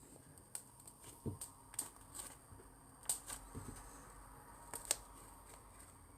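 Slime being handled and squeezed, making an irregular string of small sharp clicks and pops, with two soft low thuds.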